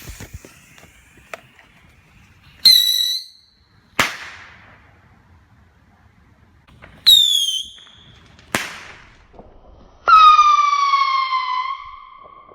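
Whistling Moon Travellers firework with report going off: three loud whistles, each falling slightly in pitch. The first two are each followed about a second later by a sharp bang. The third whistle is lower and longer, lasting about two seconds, and no bang follows it. A sharp crack comes at the very start.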